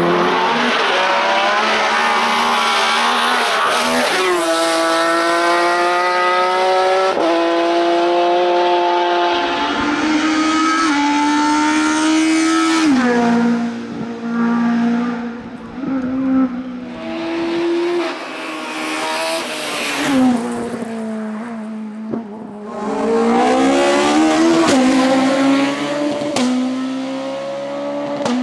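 Race-prepared hillclimb touring car engines at high revs. One car climbs through the gears with sharp upshifts a few seconds apart, the pitch rising and dropping each time. Then another car lifts off and accelerates hard again, its revs rising and falling.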